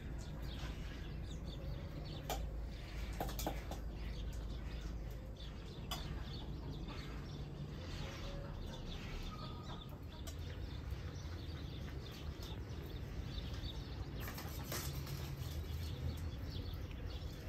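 Birds chirping and chickens clucking, with a few sharp clicks over a steady low rumble.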